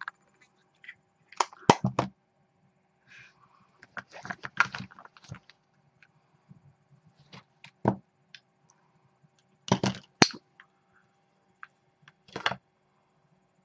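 Handling noise from makeup items: scattered clicks, taps and rustles as a compact and brushes are picked up, used and set down. They come in short clusters, the loudest about two seconds in and again about ten seconds in.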